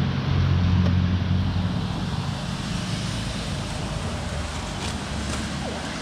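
A motor vehicle's engine hum, strong at first and fading after about two seconds, over a steady hiss.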